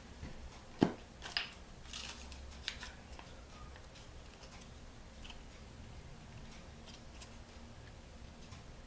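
A glue stick's cap pulled off with a sharp click about a second in, followed by a few lighter clicks. After that comes soft handling of small folded paper pieces.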